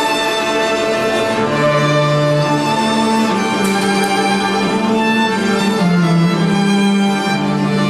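Small string ensemble of violins and cello playing a slow piece in long bowed notes, a violin melody over a low cello line.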